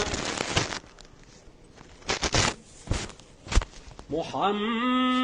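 Pause in a melodic Quran recitation: the reciter's voice trails off at the start, a few short rustling noises follow, then his long chanted note begins again about four seconds in.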